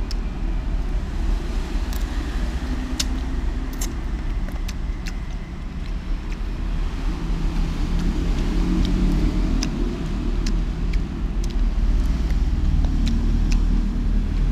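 Steady low rumble with scattered sharp, light clicks every second or so.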